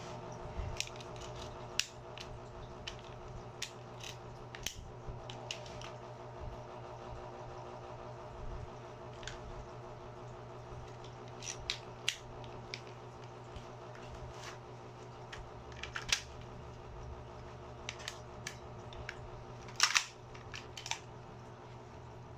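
Irregular sharp clicks and clacks of an airsoft replica's metal and plastic parts being handled, over a steady hum. The loudest is a quick cluster of clicks near the end.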